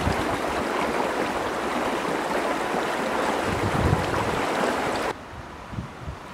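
Stream water rushing steadily. It cuts off suddenly about five seconds in, leaving a much quieter background with a couple of soft thuds.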